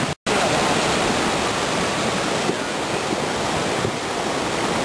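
Muddy flash-flood water rushing in a creek: a steady, loud rush of noise, broken by a momentary silence just after the start.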